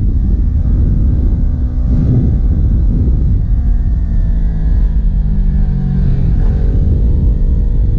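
Kawasaki Ninja 400's parallel-twin engine pulling uphill, its revs rising and falling through the bends, over a heavy low rumble of wind on the microphone.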